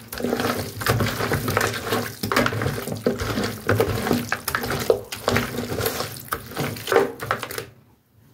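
Hands mixing and massaging raw goat meat chunks in spice seasoning in a pot: an irregular rubbing noise that stops shortly before the end.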